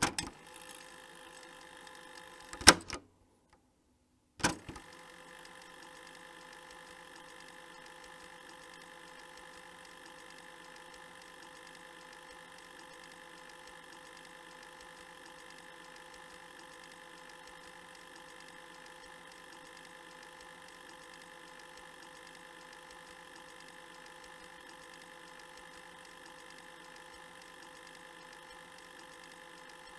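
Cassette player's keys clicking and its tape mechanism whirring. A click and a short whir are cut off by a loud clunk a little under three seconds in, followed by about a second and a half of silence. Another key click follows, and then a long, steady whir with a faint fixed hum as the tape winds forward.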